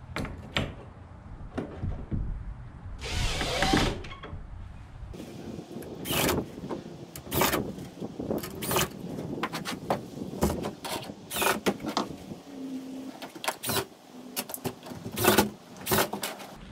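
Irregular sharp clicks and knocks of hand work on wooden shed door hardware, fitting and working the door bolts, with a brief hissing rush about three seconds in.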